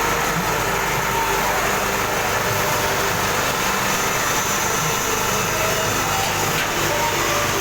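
Rotary dryer machine running with a steady, even mechanical noise.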